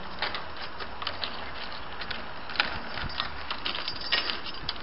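Irregular light clicks and rattles of a Winkhaus multi-point door lock being worked, its bolts sliding in and out of the door edge. A few sharper clicks come in the second half.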